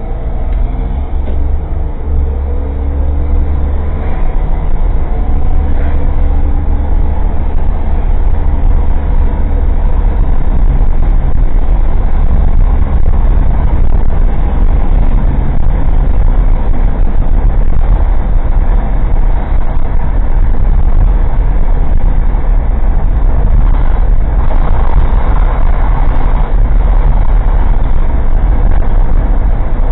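Old Suzuki Jimny kei car's engine and road noise, recorded inside the cabin by a cheap dashcam. The engine note grows louder over the first ten seconds or so, then holds as a steady drone.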